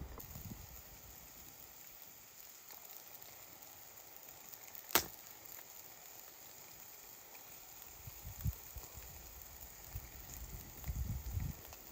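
Faint steady outdoor hiss, broken about five seconds in by a single sharp crack. A softer low thump follows a few seconds later, with some low rustling near the end.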